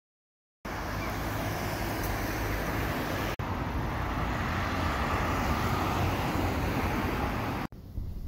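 Steady city street traffic noise, a rumble of passing cars, after a brief silence at the start. Near the end it cuts to the quieter, duller hum inside a car.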